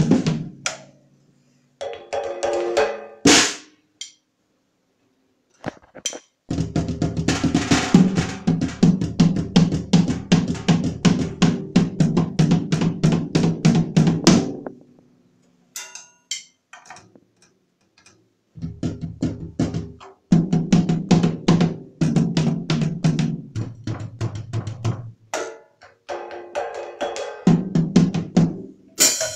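Drum kit played by a beginner: fast runs of drum strokes that stop and start several times, with pauses of a few seconds between them.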